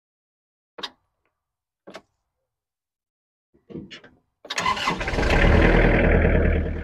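Engine of a ride-on mowing machine being started: two clicks, then a short crank, then the engine catches and runs loud for about two seconds before settling lower near the end.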